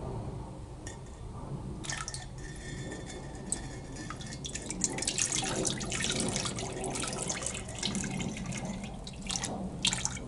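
Liquid Temmoku glaze poured from a jar over a ceramic bottle, running off and splashing into a bucket of glaze slurry below. The pouring starts about two seconds in and is heaviest in the middle, with a few small knocks near the end.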